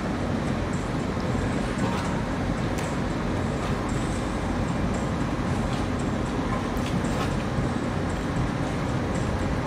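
Steady low rumble of a container port at night, distant machinery and traffic carried across the water, with a few faint clicks.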